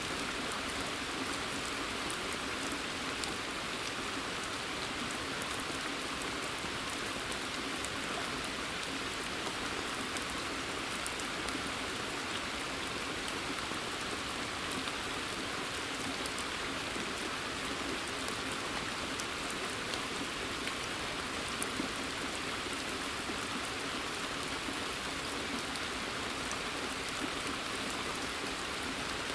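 Steady rain falling in woodland: an even hiss with scattered ticks from single drops throughout.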